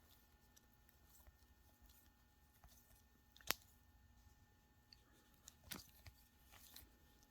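Near silence with faint handling of trading cards: soft rustles and a few small clicks, the sharpest about three and a half seconds in and another near six seconds.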